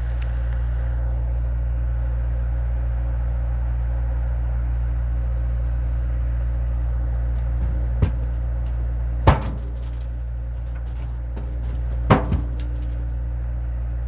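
A vehicle engine running steadily at a constant pitch, with four sharp knocks or clanks in the second half.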